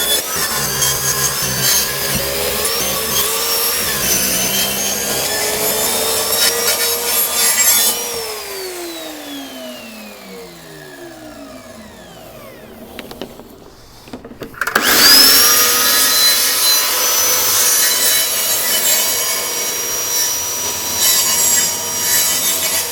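Electric circular saw cutting through a wooden internal door to shorten it. About eight seconds in the saw is switched off and its blade winds down with a falling whine. About fifteen seconds in it starts again with a rising whine and carries on cutting.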